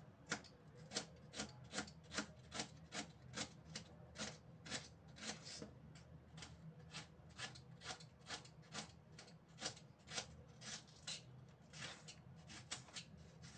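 Kitchen knife slicing an onion on a cutting board: a steady run of short strokes, about two a second.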